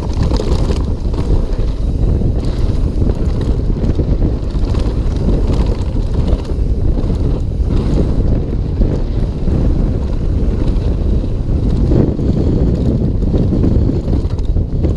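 Wind buffeting the camera microphone over the rumble of a mountain bike's knobby tyres on a dirt trail at speed, with small knocks from the bike over bumps.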